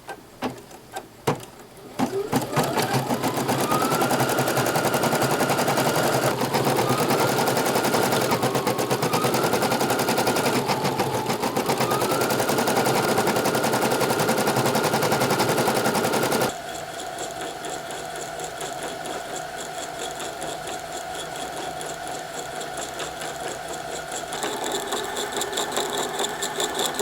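Computerized embroidery machine stitching: after a few clicks, the needle starts running rapidly about two seconds in, with a motor whine that climbs and levels off several times. About two-thirds of the way through it drops to a quieter, steadier run.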